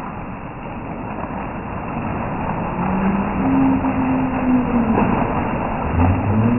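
Heavy rain pouring onto a flooded paved street, a steady hiss that grows louder. About halfway through, the low hum of a motor vehicle's engine joins in and drops in pitch near the end.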